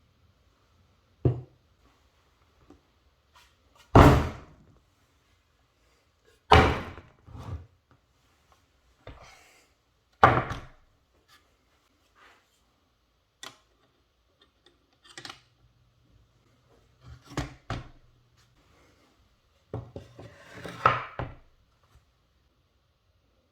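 Irregular thunks and knocks from a rifle scope, mount and rifle being handled and set down on a hard surface, about a dozen in all, with a denser run of knocks near the end.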